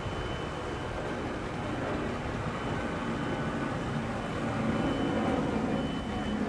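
Twin outboard motors running under throttle as a center-console boat pulls away from the dock, a steady engine drone that grows a little louder in the second half.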